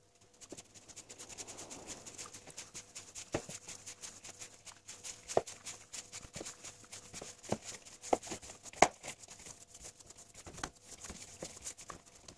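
A hand squeezing and kneading crumbly shortcrust pastry dough in a plastic bowl: a dense crackle of small clicks, with a few sharper knocks.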